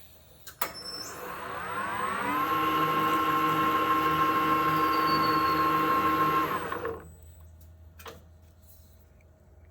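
ERL-1340 metal lathe making a threading pass. A click starts it, and the spindle motor spins up with a rising whine. It runs steadily for about four seconds while the carbide insert cuts the thread in O1 steel, then stops as the proximity stop cuts the power at the end of the thread. A faint hum is left after it.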